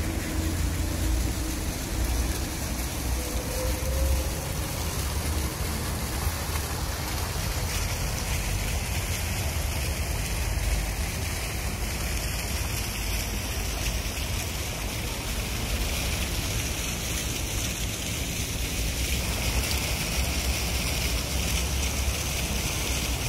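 Steady hiss and splash of garden water sprays and misters over a pond, with a low rumble underneath.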